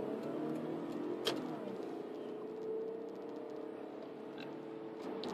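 A car's engine and road noise heard from inside the cabin while driving: a steady hum that drifts slowly in pitch. There is a single sharp click about a second in.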